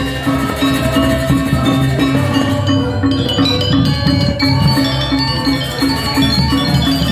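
Balinese gamelan music: metal mallet percussion playing quick runs of ringing notes over a steady low beat.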